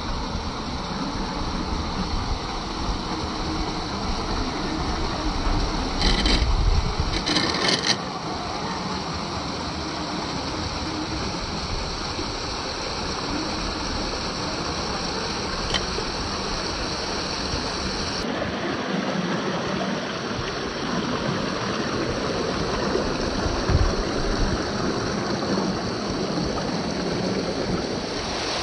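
Steady rush of running water, with a short louder stretch of knocks and scuffs about six to eight seconds in.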